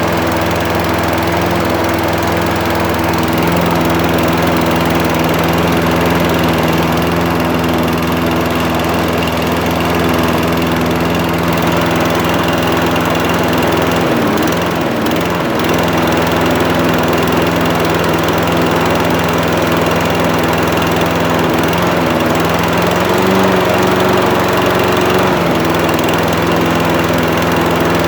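Toro Recycler walk-behind mower's small single-cylinder engine running steadily. About 14 seconds in, its speed dips and wavers for a second or so before recovering, and around 23 seconds in the pitch rises briefly.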